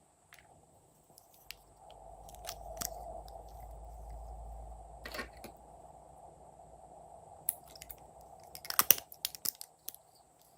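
Slime being mixed and worked by hand: scattered sticky clicks and crackles, with a dense run of loud crackling pops about nine seconds in.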